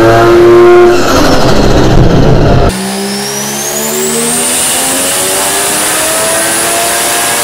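Turbocharged 20B three-rotor rotary engine in an FD RX7, run hard on a chassis dyno. About three seconds in, the sound changes abruptly to another pull: the revs climb steadily, and a high whine rises and then holds steady.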